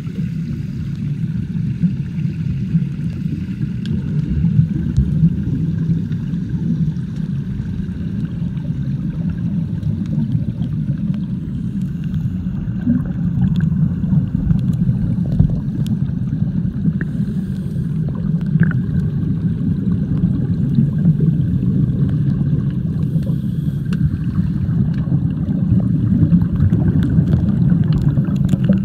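Steady, muffled low rumble of water heard with the microphone underwater in a swimming pool.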